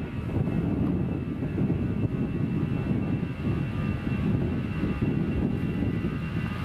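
Airbus A320-200's twin jet engines running steadily as the airliner rolls along the runway: a low rumble with a thin, steady high whine above it.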